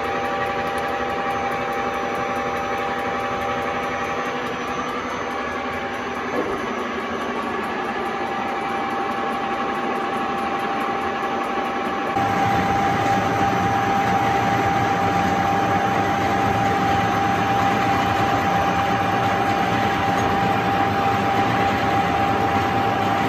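Vertical milling machine running with a steady mechanical hum and a steady whine. About halfway through, the sound changes abruptly and gets louder.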